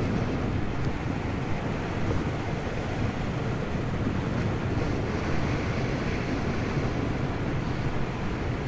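Steady rush of wind over the microphone of a hang glider in flight, from the airflow at flying speed.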